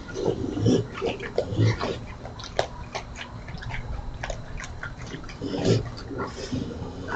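Raccoons eating cat food from a plastic dish: irregular crunching, chewing and clicking sounds, with a few short low sounds about a second in and again near the end.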